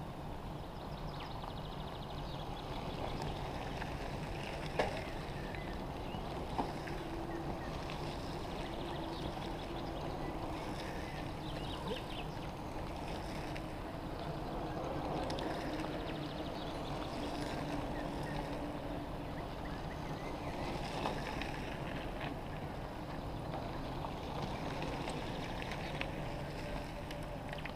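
Steady low outdoor background noise as bicycles roll along a dirt road, with a few faint clicks and knocks.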